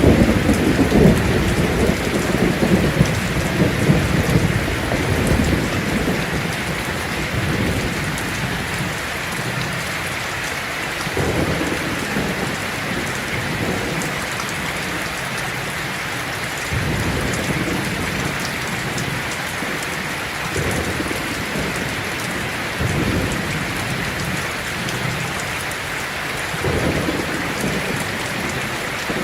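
Heavy rain falling steadily on a tin roof, with thunder rumbling underneath. The thunder is loudest over the first few seconds, then comes back as shorter, fainter rolls every few seconds.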